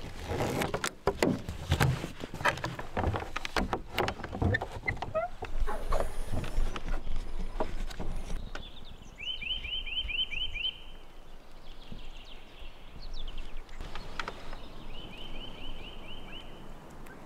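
Clicks and knocks of a ratchet strap and gear being handled in a pickup's camper bed. Then, about nine seconds in, a bird calls a quick run of rising chirps, about eight in a row, and repeats the run near the end.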